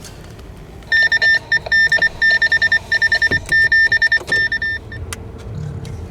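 Electronic beeping: a loud, high single-pitched tone sounding in a run of uneven short and long beeps for about four seconds, then stopping. A faint steady hum follows over wind noise.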